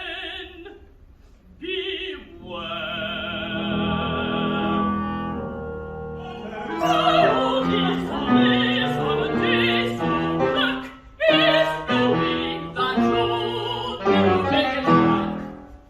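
Contralto singing opera with a wide vibrato over orchestral accompaniment: a long held note early on, then quicker, busier phrases that break off near the end.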